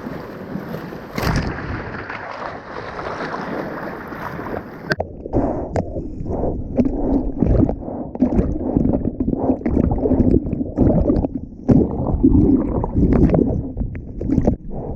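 Ocean surf and wind noise on the microphone. About five seconds in it changes to irregular splashing and gurgling of water close to the microphone.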